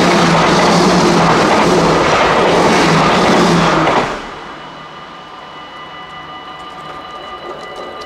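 A train passing over a Dutch level crossing, a loud rushing rumble that cuts off sharply about four seconds in as the train clears. The crossing's warning bells are then left ringing steadily.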